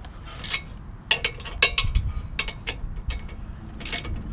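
Ratchet wrench clicking in short, irregular runs as it turns the forcing bolt of a Pittsburgh ball joint separator, building pressure to pop the control arm's ball joint loose. A sharper metallic click stands out about one and a half seconds in.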